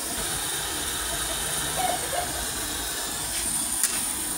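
Steady hiss of a wok of capcay soup cooking over its burner, while a metal spatula stirs mustard greens in the aluminium wok, with small scrapes about two seconds in and one sharp clink against the wok near the end.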